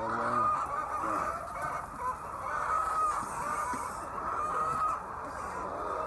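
A flock of laying hens clucking together in a steady chorus, with single drawn-out calls rising above it every second or so and a lower call right at the start.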